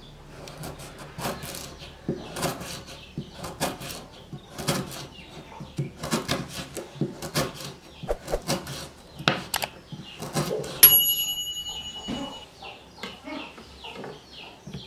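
Kitchen knife chopping lemongrass stalks on a wooden cutting board: a series of uneven chops, about one or two a second. Near eleven seconds one sharper strike gives a high metallic ring that dies away over a second or so.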